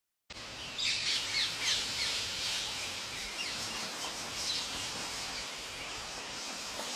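A large flock of parrots calling together: a dense chorus of many short, high, falling squawks and chirps, busiest in the first couple of seconds.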